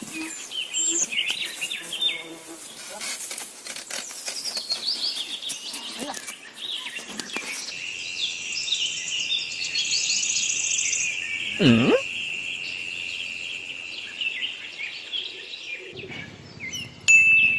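Birds chirping and calling in many short high notes, with a steady high insect-like drone through the second half and a single swooping call that falls in pitch about twelve seconds in.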